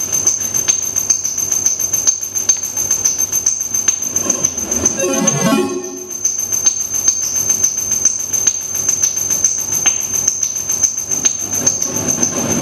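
Live noise music from hand-built electronic noise circuits ('noise androids'): dense crackling clicks over a steady high whine. About five seconds in, a pitched sweep dips and rises, then cuts off suddenly.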